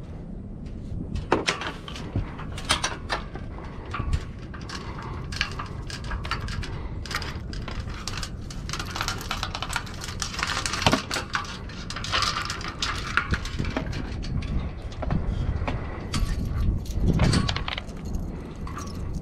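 Light metal clinks and rattles of stainless sailboat rigging hardware (shackles, pins and the wire forestay) being handled and worked with pliers at the bow fitting, with a few dull thumps near the end.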